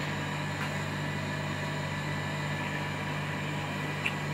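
Steady mains hum with an even hiss from running electrical equipment, unchanging throughout, with one faint tick about four seconds in.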